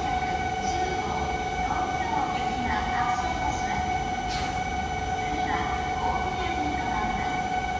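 E4 Series double-decker Shinkansen standing at the platform, giving off a steady, even high-pitched hum with overtones over a low rumble, with a child's voice heard now and then.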